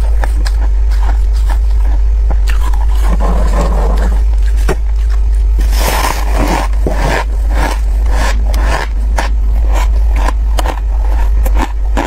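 Packed freezer frost being scooped up and bitten: a scraping handful, then crunching bites with many sharp crackles, the heaviest crunch about six seconds in. A steady low hum runs underneath.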